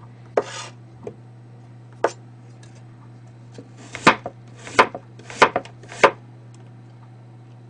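Kitchen knife slicing a peeled Chinese yam (ma) on a cutting board. A short scrape and a couple of light taps come first, then five sharp knife strokes in quick succession in the second half.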